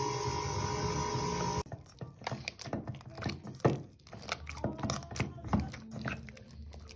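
KitchenAid stand mixer motor running steadily with a constant hum as its dough hook kneads dough, stopping abruptly about a second and a half in. Then irregular soft thuds and squelches of dough being kneaded by hand, with oil worked in, against a stainless steel mixing bowl.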